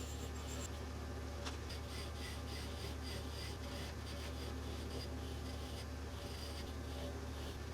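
Light scraping and rubbing, like hand work on metal engine parts, over a steady low hum, with a sharp click about a second and a half in.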